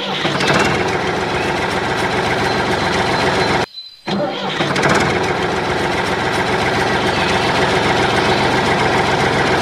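Small mini-tractor engine running steadily with a rattling note; the sound drops out abruptly for about half a second a little under four seconds in, then runs on as before.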